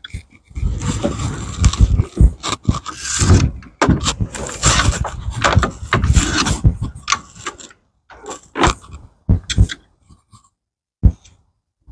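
Irregular scraping and clattering as the rubber spline is worked out of a sliding screen door's frame channel, in uneven spurts with a short pause near the end.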